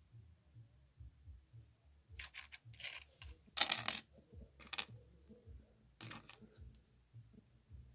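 Loose plastic LEGO pieces clicking and clattering against each other as a hand sorts through a pile of them, in a few short clusters with the loudest near the middle.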